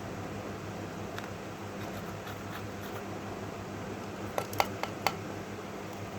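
About four sharp clicks in quick succession, over a steady low hum and hiss.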